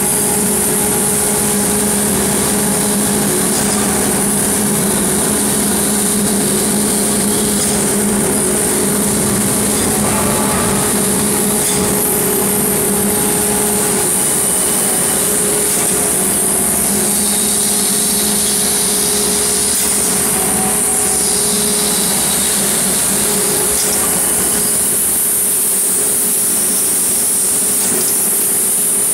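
GT6/12 steel wire straightening and cutting machine running: a loud, steady mechanical hum with a high hiss over it.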